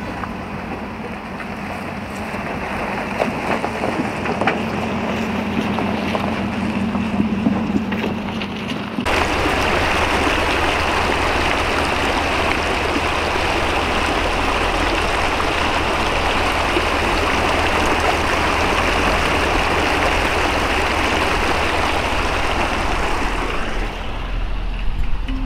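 Ford Raptor pickup's engine running low and steady, with scattered clicks and knocks. About nine seconds in, it cuts suddenly to a steady rushing of flowing water, like a creek.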